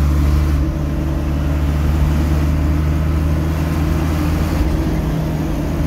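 Steady engine hum and road noise heard from inside a vehicle's cab while driving along at speed.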